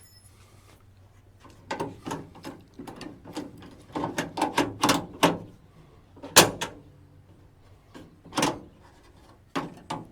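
A run of clicks and knocks from a 1963 Chevrolet C10 pickup's door and newly fitted door latch being worked, with louder knocks about six and about eight seconds in.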